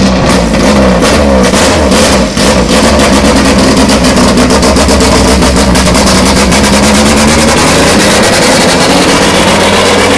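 Race-prepared Renault Clio's engine revving loudly, its pitch rising and falling several times, then pulling away under acceleration.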